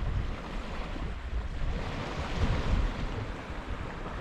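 Sea surf washing on a rocky shore, with wind buffeting the microphone. There is a louder surge a little past halfway.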